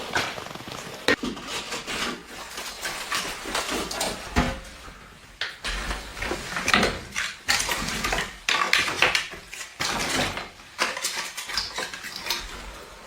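Irregular clatter of knocks and clicks from things being handled, with short pauses between them.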